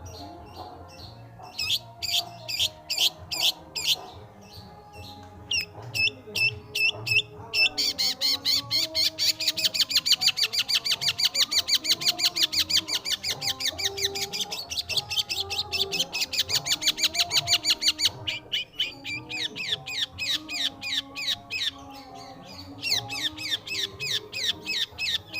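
Long-tailed shrike singing in bursts of sharp, fast-repeated high notes, breaking into a long unbroken run of rapid chattering notes for about ten seconds in the middle. Background music plays underneath.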